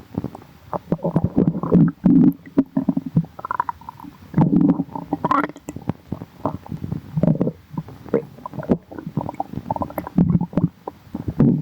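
Human stomach growling: irregular gurgling rumbles that come in bursts every second or so, with a short rising squeal about five and a half seconds in.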